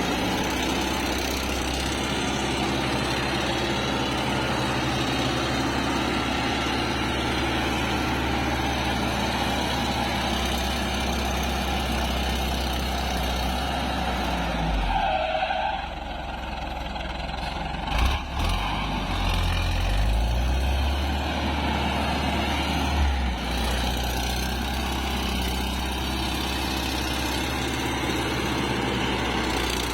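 Motor grader's diesel engine running steadily. Past the middle the engine note dips, a single knock is heard, and a heavier low rumble follows for about five seconds before the engine settles back.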